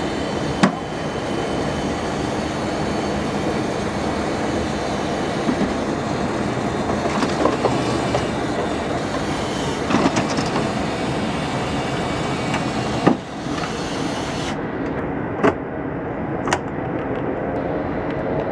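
Boeing 737 built-in airstairs unfolding and extending from under the forward door: a steady mechanical drone with a sharp metal clank just after the start and several more clunks later as the stair sections and handrails reach their stops. The high hiss in the drone drops away about three-quarters of the way through.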